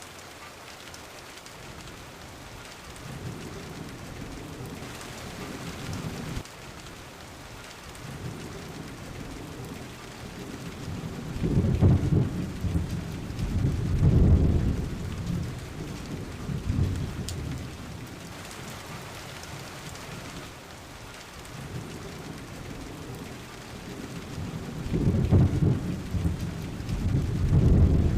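Steady rain falling, with rolls of thunder: low rumbles swell up about halfway through and again near the end.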